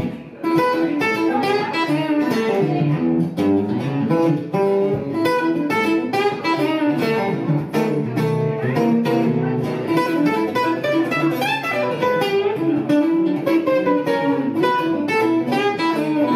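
Semi-hollow-body electric guitar played through an amplifier in an instrumental passage without singing: quick picked notes and chords in a steady groove.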